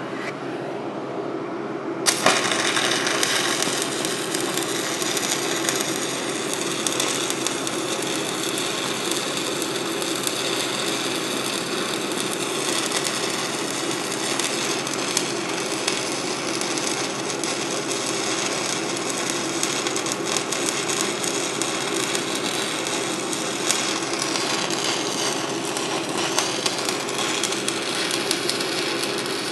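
A shielded metal arc (stick) welding arc strikes with a sharp crack about two seconds in. It then crackles and sizzles steadily while the hot pass is run on 6-inch schedule 40 pipe, over a steady hum.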